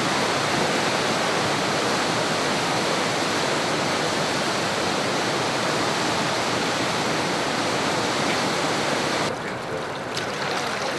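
Floodwater of the overflowing Drina river rushing past in a steady, loud churning roar of water. It softens and loses some of its hiss about nine seconds in.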